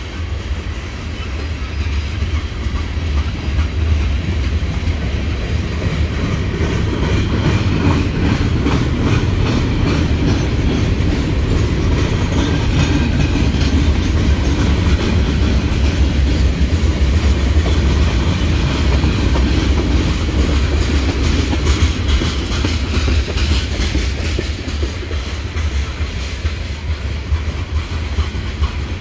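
Freight cars of a CSX manifest train rolling past: a steady low rumble of steel wheels on rail, with rapid clicking from the wheels that comes and goes.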